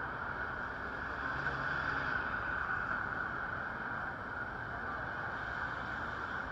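City street traffic on a wet road: a bus and cars pass through an intersection, their tyres and engines under a steady hiss, a little louder about two seconds in.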